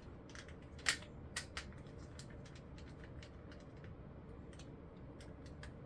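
Light clicks and taps of hard plastic as a Shadow action figure is fitted onto its toy motorcycle, the loudest click about a second in and a few fainter ones scattered after.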